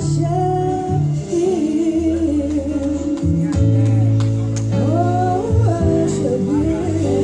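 Live gospel singing: a group of female singers harmonising in held, sliding notes over instrumental backing with a steady bass line.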